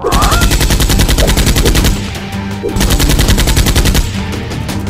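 Rapid automatic gunfire sound effect in two bursts: one of about two seconds, then after a short break a second of about a second and a half, laid over background music.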